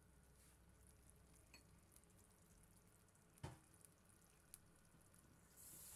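Near silence with a faint low hum and a single light click about three and a half seconds in; near the end a soft steady hiss comes in from coconut-milk laksa broth starting to sizzle in a stainless steel pan.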